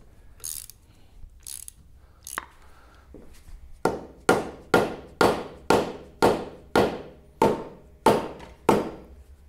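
Homemade mallet (a softball on a rattan handle) striking the tractor's steel motor-mount area in a steady run of about a dozen blows, a little over two a second, each with a short metallic ring. The blows start about four seconds in, after a few scattered light clicks.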